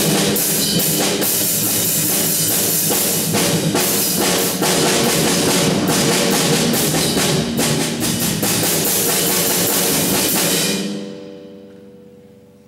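Percussion ensemble of drums, including timpani and a concert bass drum, playing loud and dense with rapid strokes. It stops about eleven seconds in, and the final notes ring on and fade away.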